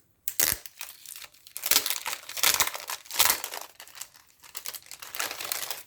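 Plastic packaging crinkling in irregular bursts as it is unwrapped by hand.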